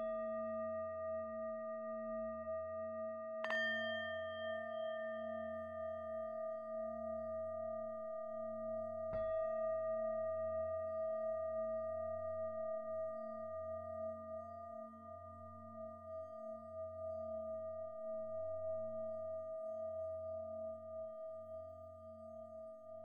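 Meditation music of struck, ringing bowl tones, like singing bowls. It is struck at the start and twice more within the first ten seconds, and the tones then ring on, the low hum wavering slowly as it fades.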